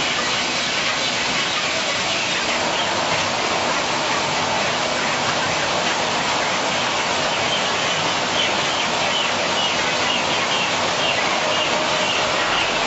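Steady rushing of water and machinery on a chicken slaughtering line. A series of short high calls, like chickens, comes in over it in the second half.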